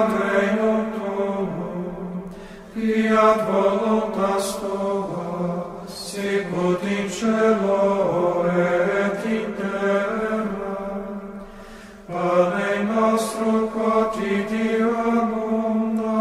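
Slow devotional hymn sung in long, drawn-out phrases, with short breaks about three seconds in and again about twelve seconds in.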